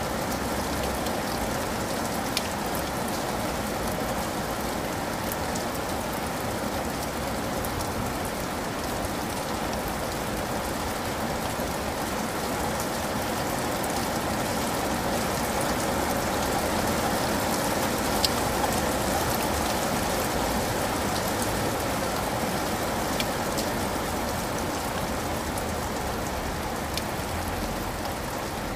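Steady rain falling: an even hiss, with a few sharp drop clicks.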